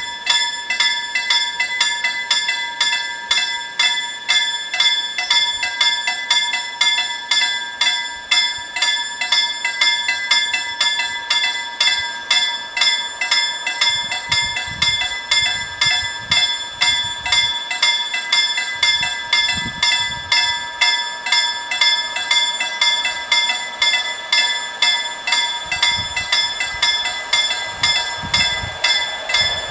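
Level-crossing warning bells ringing in rapid, even strokes, signalling that the barriers are down for an approaching train. Low rumbles come and go in the second half.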